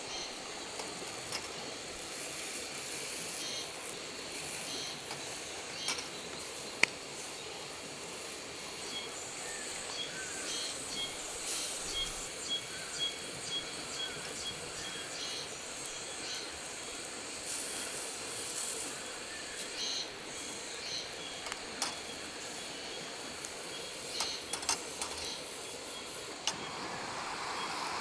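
Food sizzling on a hot Himalayan salt grill plate over a wood fire, a steady hiss, with scattered sharp clicks and taps as a knife and tongs work the vegetables on the plate.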